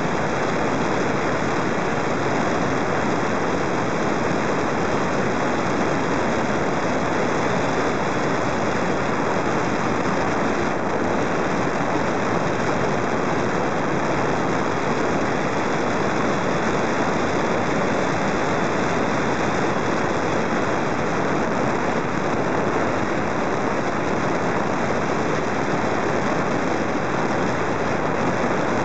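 Steady, even rush of airflow over a camera carried aloft on a model airplane in flight, a loud unbroken noise with no distinct motor whine.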